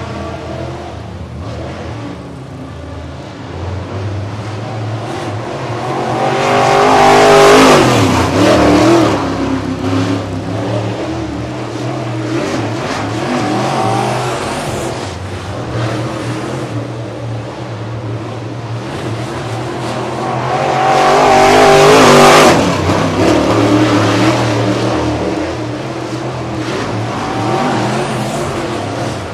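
Dirt late model racecar's 602 crate V8 running hard laps around a dirt oval. It passes close twice, about fourteen seconds apart: each time the engine gets louder on approach, its pitch drops as it goes by, and it fades as the car goes round the far turns.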